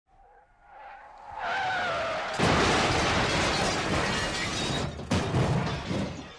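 A car crash: a squeal builds over the first two seconds, then a loud impact about two and a half seconds in, followed by breaking glass and scattering debris, with further knocks near the end.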